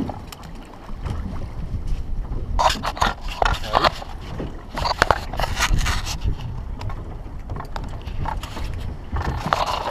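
Wind rumbling on the microphone aboard a small boat. There are bursts of scraping and knocking in the middle, as a caught fish is hauled aboard onto the fibreglass deck.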